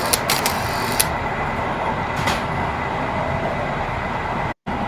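Train running along the rails: a steady rumble with a few sharp clacks in the first second and another about two seconds in. The sound breaks off for an instant near the end.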